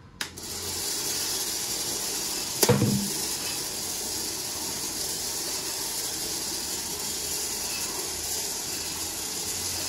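A Barwell electric peanut/coffee roaster switching on with a click and then running from a cold start, its stirring arm sweeping green coffee beans around the pan in a steady hiss. One loud knock comes nearly three seconds in.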